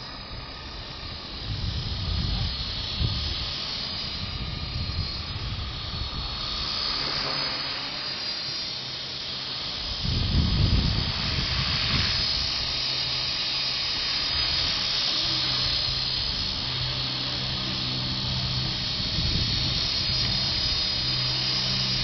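Small electric RC helicopter (Blade CP Pro) whining in flight, with strong wind gusting over the microphone; the gusts are loudest about two and ten seconds in, and a steady rotor hum sets in past the halfway mark.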